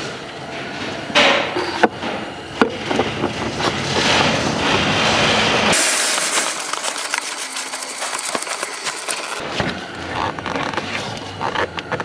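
Handling noise of a spin-on oil filter being screwed onto an engine's filter head by gloved hands: scraping and rubbing with many small clicks, and a few sharper knocks in the first three seconds.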